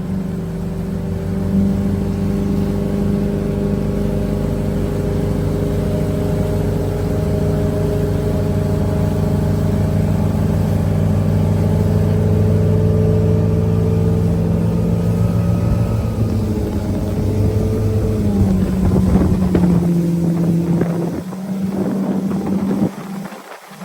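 Motorboat engine running steadily at speed with a deep, even drone while towing a water-skier. Its pitch shifts slightly late on, and the sound falls away just before the end.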